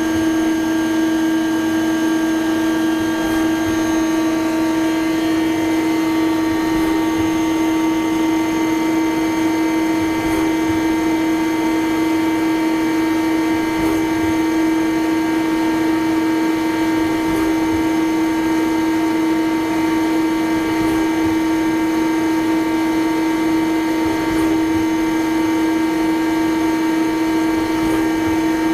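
Spinner TC-65 CNC lathe running at a constant speed: a steady, even machine hum with one strong low tone and several fainter steady tones above it, unchanging throughout.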